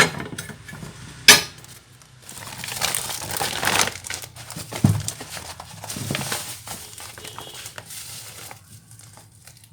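Steel plate parts of a bandsaw table kit being handled: sharp metal knocks near the start and about a second in, then rustling and scraping, with another knock and a few light clinks.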